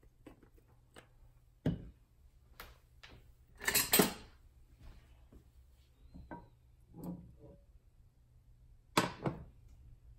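Scattered light knocks and clatters of kitchen handling around a frying pan on a glass-top range, as the oil bottle is set down and a silicone spatula is picked up; the loudest clatter comes about four seconds in, with a sharp double knock near the end.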